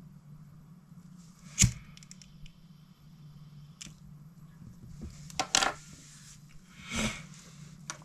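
A few sharp clicks from a disposable lighter being flicked to heat shrink tubing over a fishing knot, then a knock near the end as the lighter is set down on a wooden desk, over a low steady hum.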